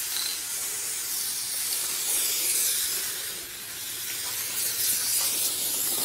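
Aerosol spray paint can spraying in long strokes: a steady, high-pitched hiss that swells and dips as the can moves.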